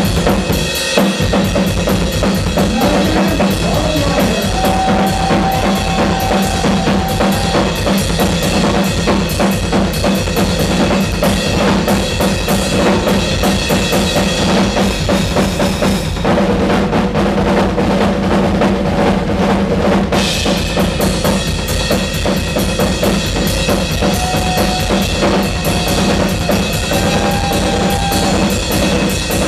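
Live rock drum solo on a ddrum kit: a dense, rapid run of bass drum and snare strokes under cymbals. A little past halfway the cymbals drop out for about four seconds while the drums keep going, then the cymbals come back in.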